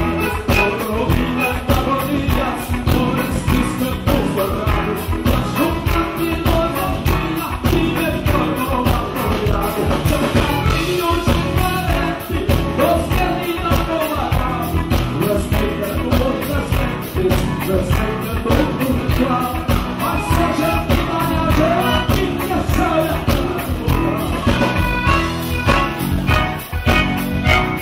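Live gaúcho music: a man singing over piano accordion and a band with a steady beat.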